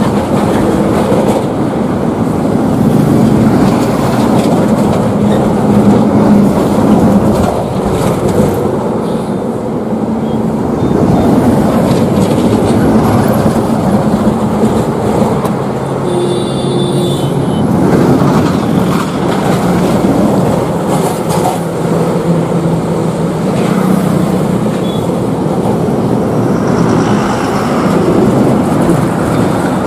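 Heavy diesel lorries passing close by on a highway one after another, engines running and tyres rumbling, swelling as each goes past.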